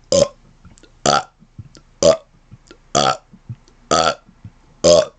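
A man burping in rapid succession: six short, pitched burps about one a second, with faint clicks between them.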